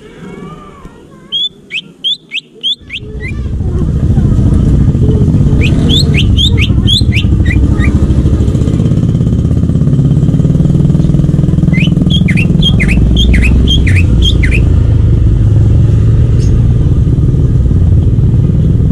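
Greater green leafbird (cucak ijo) singing in three quick runs of sharp chirps. From about three seconds in, a loud, steady, engine-like low rumble sets in and becomes the loudest sound under the song.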